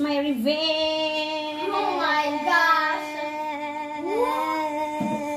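A girl singing a long, steadily held note, with a few short swoops up and down in pitch partway through.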